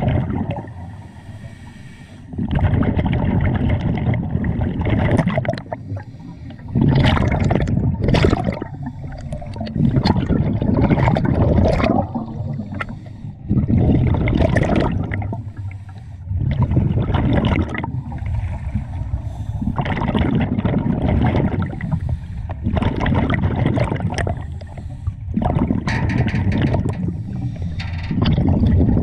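Scuba diver breathing underwater through a regulator: about eight surges of exhaled bubbles, each lasting a couple of seconds, with quieter breaths in between.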